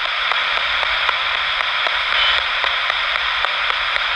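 Ghost-box style radio scanner sweeping through stations: steady static hiss with a faint click roughly every third of a second as it hops channel to channel, played loud while waiting for a spirit's reply.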